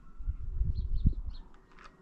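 A few short, high bird chirps in the middle, over louder low rumbling bumps in the first half, and a brief sharp sound near the end.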